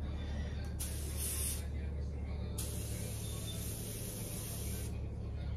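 Compressed-air paint spray gun hissing in two bursts as paint is sprayed: a short one about a second in, then a longer one of about two seconds from midway.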